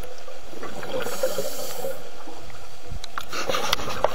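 Scuba diver breathing underwater through a regulator: a steady breathing hiss, with a rush of exhaled bubbles about a second in and a cluster of crackling bubble clicks near the end.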